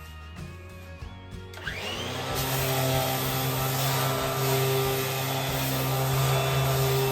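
A handheld power tool motor spins up about a second and a half in and then runs steadily, breaking the edges of the wood. Background music plays underneath.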